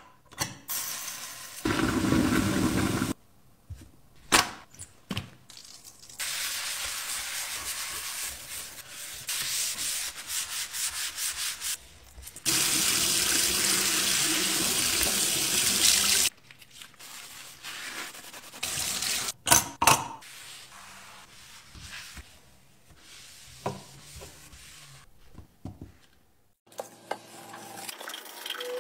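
Scrubbing a kitchen sink with a sponge and brush, with rough rubbing strokes. Tap water runs into the sink for a few seconds around the middle, and there are a couple of sharp knocks a little later.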